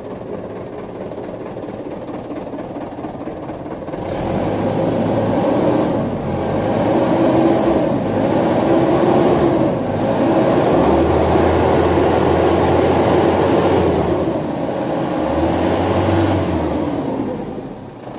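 Truck diesel engine idling, then revved hard in about four long surges before easing back near the end. A serviced exhaust flexible pipe is fitted to the tailpipe and fails to give its whistling 'ngir' note, so only plain engine and exhaust sound is heard.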